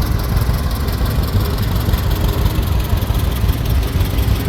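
Vintage farm tractor engine running steadily at low speed in a parade; its low engine sound is steady throughout.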